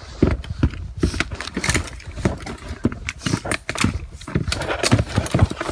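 Footsteps crunching and cracking over icy, frozen ground: a quick, uneven run of crunches.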